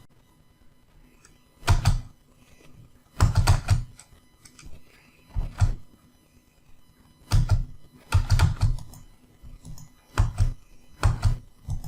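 Computer keyboard tapped in short bursts of one to a few firm keystrokes every second or two, each stroke a sharp click with a dull thud.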